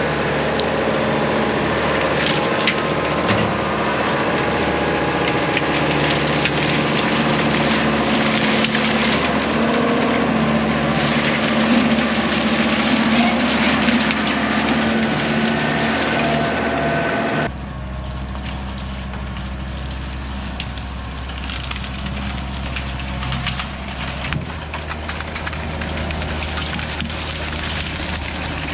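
Kubota tractor's diesel engine working under load as its front-end loader pushes through bamboo, with bamboo canes cracking and splintering throughout. About 17 seconds in the sound changes abruptly to a quieter, deeper engine hum with sparser crackling.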